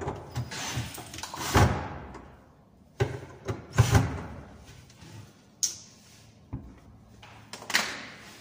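A string of sharp wooden knocks and clacks from a laminated cabinet door being swung and shut on its freshly screwed concealed hinges.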